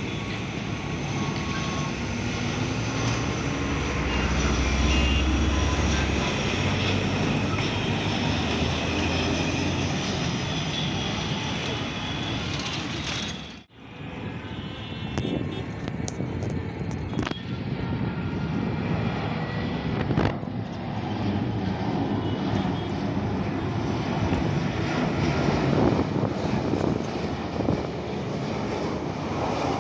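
Twin-turboprop engines of an ATR 72-500 airliner droning steadily on landing approach. About fourteen seconds in, the sound cuts out for an instant, then the jet engines of a Boeing 737-800 on approach take over, with a few faint clicks.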